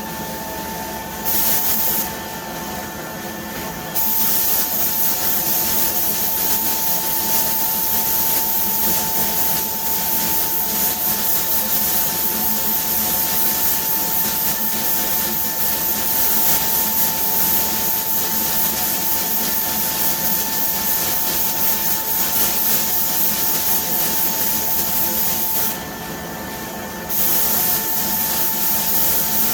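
Paint spray gun hissing as clear coat is sprayed onto a wheel, the air switched on and off with the trigger: a short burst about a second in, a long continuous pass from about four seconds, a brief stop near the end, then spraying again. Under it runs a steady hum with a constant tone.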